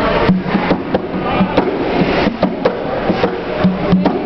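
Atabaque, a tall rope-tuned hand drum, played freestyle with bare hands: a fast, uneven run of sharp slaps mixed with deeper open tones.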